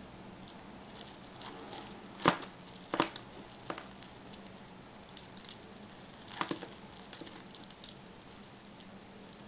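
Two rhinoceros beetles, a Japanese rhinoceros beetle and a small Atlas beetle, grappling, their clawed legs and hard shells scratching and clicking against a wooden log and a clear plastic case. There is a sharp click about two seconds in, another about a second later, and a short cluster of clicks about six and a half seconds in.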